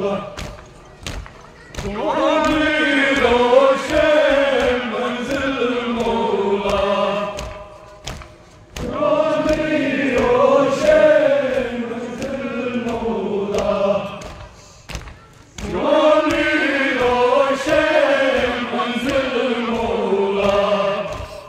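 Kashmiri noha, a Muharram lament, chanted by a group of men in three long melodic phrases with short pauses between. Steady thumps run beneath it, the beat of chest-beating (matam).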